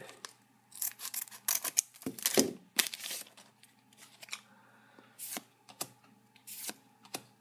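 Scissors snipping open a foil trading-card booster pack, a few sharp cuts and crinkles of the wrapper in the first three seconds, then softer rustling and clicks of the cards being taken out and handled.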